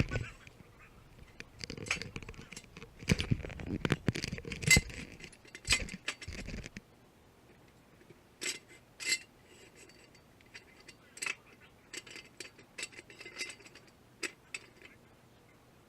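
Hand tools clinking and clicking against metal bolts and exhaust parts, muffled by a waterproof camera case. The clinks come thickly with dull knocks in the first half, then sparser and more spread out.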